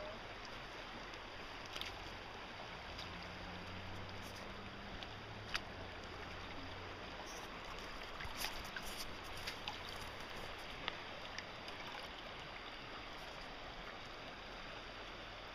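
Creek water running steadily, with a few faint clicks and knocks scattered through.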